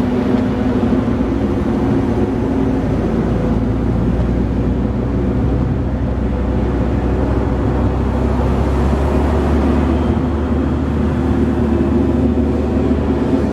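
Strong wind buffeting the microphone in a steady low rumble, with a faint, roughly level tone underneath.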